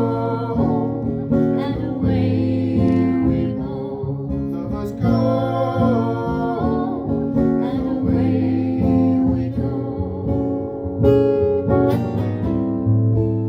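Acoustic guitar strumming chords in an instrumental break of a live song, with a melody line in short phrases over it.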